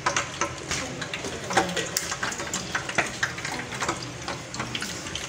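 Hot oil sizzling and crackling in a frying pan as batter-coated pinwheel sandwiches fry, with a metal spoon scraping and clinking in a glass bowl of thin flour batter.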